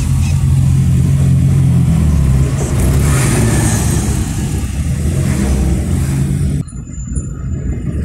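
Car engine and road noise heard from inside a moving car's cabin, a steady low hum. About six and a half seconds in, the sound cuts abruptly to a quieter, duller version.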